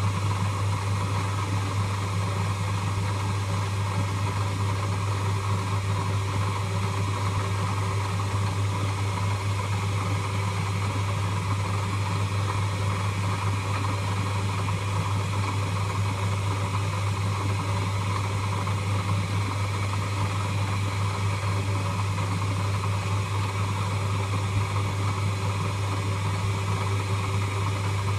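Lathe running steadily: an even low hum over a constant hiss.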